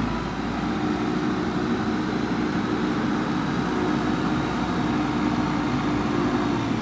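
Backhoe loader's diesel engine running steadily under load as the machine pushes its lowered front bucket across bare soil, scraping and levelling it.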